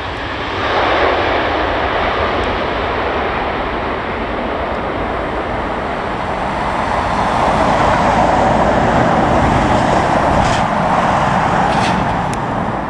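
Jet airliner engines passing at an airport: a loud, steady rushing noise that swells to its loudest in the second half, then begins to fade near the end.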